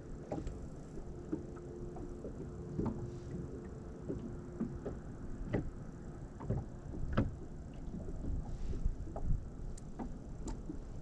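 Water lapping against a bass boat's hull, with irregular small knocks under a low rumble, and a faint steady hum during the first half.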